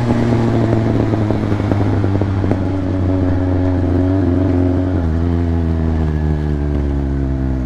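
Motorcycle engine running steadily at riding speed with wind rush, its note dropping a little about five seconds in as the throttle eases.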